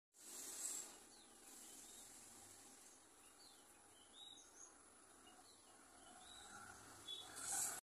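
Faint outdoor ambience with a few short, high bird chirps scattered through it over a steady faint hiss, and a brief louder rush of noise at the start and again near the end.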